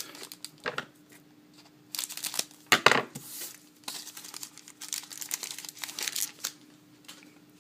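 Foil wrapper of a hockey trading card pack crinkling and tearing as it is opened by hand, in irregular bursts that are loudest about two to three seconds in.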